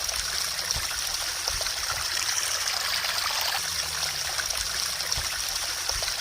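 A mountain creek running full after a rainstorm: a steady rush of water with bubbling and trickling.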